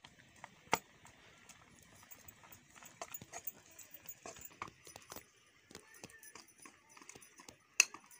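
Metal ladle knocking and scraping against an iron wok as boiling nettle greens are stirred: irregular clicks over a faint hiss, with two sharp, louder knocks about a second in and near the end.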